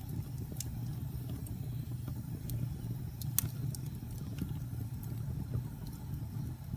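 Fire burning in a fireplace: a steady low rumble of flames with scattered sharp crackles and pops, the loudest about three and a half seconds in.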